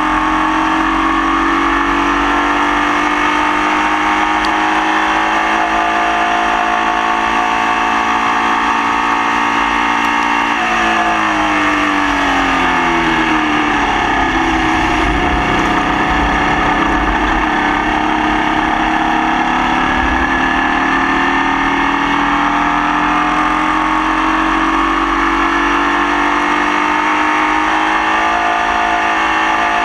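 Formula Vee race car's air-cooled Volkswagen flat-four engine running hard, its pitch climbing slowly, then falling steeply for about four seconds as the car slows, then climbing again. The engine is running with a misfire.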